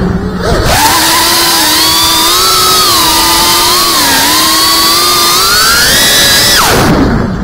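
GEPRC Cinelog 35 FPV drone's brushless motors and propellers whining, heard from the onboard camera. The pitch rises and falls with the throttle. The whine drops away briefly at the start as the drone dives, and again near the end as it flips, then picks back up.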